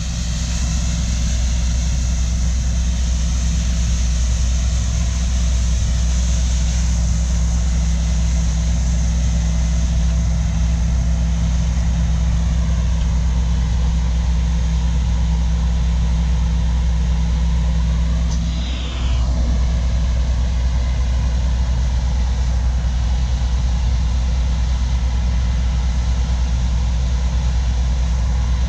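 Heavy diesel harvest machinery, combines and track tractors, running steadily with a deep engine hum. About two-thirds of the way through the sound briefly dips and shifts, with a short falling whine.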